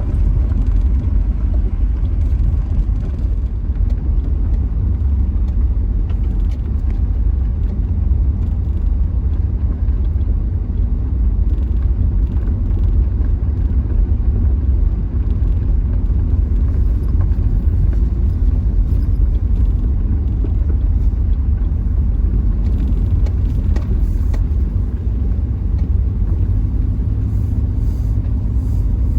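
Steady low road and engine rumble heard from inside a Subaru's cabin while it drives along, with no sharp events.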